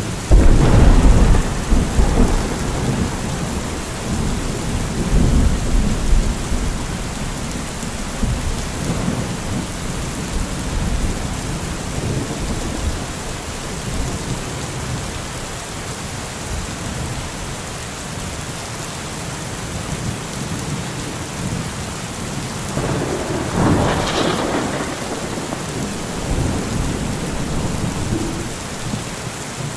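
Steady rain with thunder: a loud clap just after the start that rolls on for several seconds, and a second crack and rumble about three quarters of the way through.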